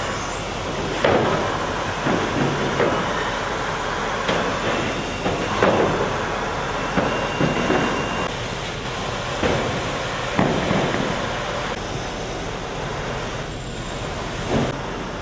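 Industrial plywood and veneer sanding machine running with a steady noise, with irregular knocks and clatters on top, the loudest about a second in, near the middle and about ten seconds in.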